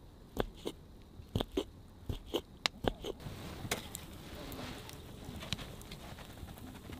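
Knife chopping garlic on a wooden cutting board: about nine sharp, irregular knocks. About three seconds in, the chopping gives way to a wood fire burning under a wok, a steady hiss with small crackles.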